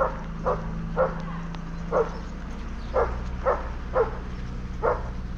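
A dog barking repeatedly, sharp single barks about two a second with short pauses, over a steady low hum.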